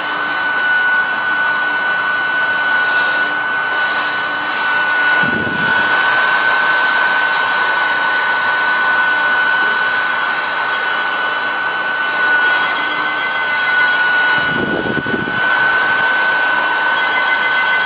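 Mini USB keyboard vacuum cleaner running steadily: a high motor whine over a rush of air. Twice a short low rumble breaks in, about five seconds in and again around fifteen seconds.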